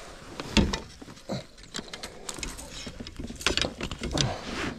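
Irregular knocks and rattles of a landing net, holding a just-caught peacock bass, being handled against a plastic fishing kayak, with one sharp knock about half a second in and a cluster near the end.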